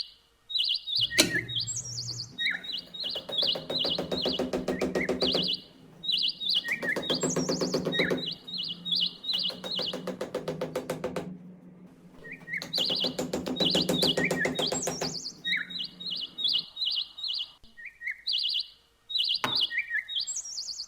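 Rapid high bird-like chirps repeating in short clusters over a looping background music track with a steady low note.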